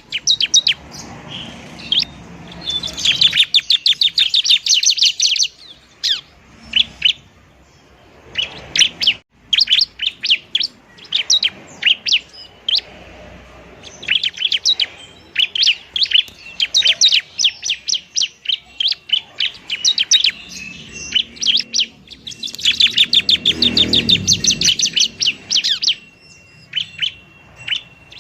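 Bar-winged prinia (ciblek) giving its fighting song: quick runs of sharp, high chirps broken by short gaps, with two dense rapid trills, one near the start and a longer one about three quarters through. A thin steady whistle follows near the end.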